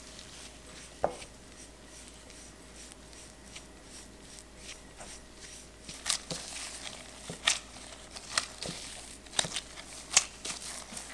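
Tart dough being pressed and kneaded by hand in a glass bowl, with disposable gloves crinkling and the crumbly dough crackling in quick irregular bursts from about six seconds in. Before that, a spatula works egg yolk into the crumbs, with one ringing knock against the glass bowl about a second in.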